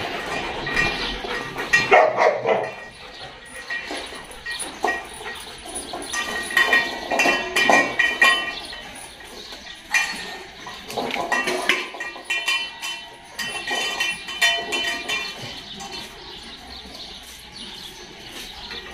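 Dogs barking on and off, several calls at a time, in a yard full of dogs.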